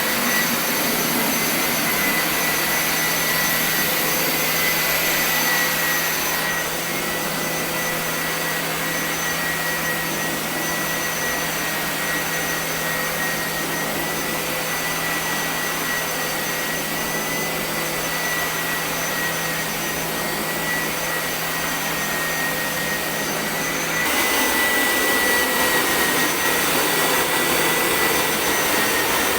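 Home carpet-washing machine's suction motor running steadily with a high whine. It turns a little quieter and duller about six seconds in and louder again near the end.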